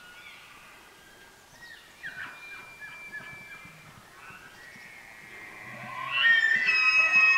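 Rutting bull elk bugling. Fainter whistled calls come about two seconds in, then a loud call rises into a high, held whistle near the end.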